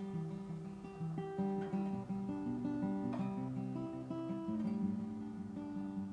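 Background music: an acoustic guitar playing a run of changing notes.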